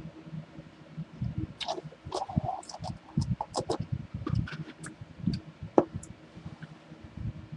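Close-up chewing of sticky butter toffee: irregular soft low thumps with scattered wet mouth clicks and smacks, busiest in the middle of the stretch.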